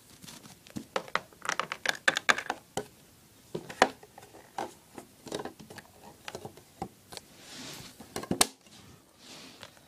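Small plastic toy figures being handled: irregular light clicks and taps on a hard surface, with a brief soft rustle near the end.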